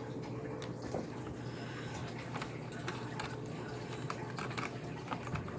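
Scattered light clicks and taps of plastic laptop parts being handled and pushed into place, over a steady low hum.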